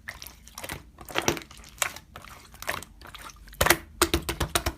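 Slime being squeezed and pressed by hand, making sticky wet clicks and pops, with a quick run of clicks near the end.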